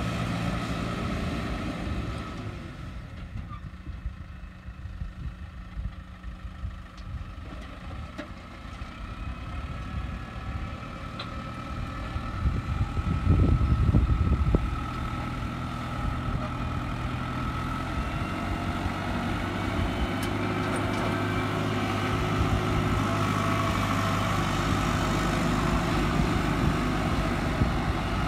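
Case IH tractor's diesel engine running steadily as it pulls a rear grader blade through dry dirt, levelling the ground. The low rumble swells louder for a second or two about halfway through.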